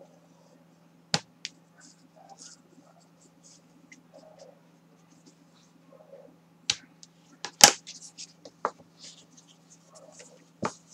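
Bone folder rubbing and scraping along kraft cardstock to crease the scored lines, with a few sharp clicks and taps, the loudest about two-thirds of the way in. Near the end the stiff card is lifted and folded.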